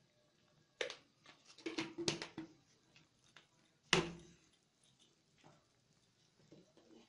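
Metal utensils clinking and knocking against a metal wok: a few scattered knocks, a quick cluster about two seconds in, and a louder knock with a short ring about four seconds in.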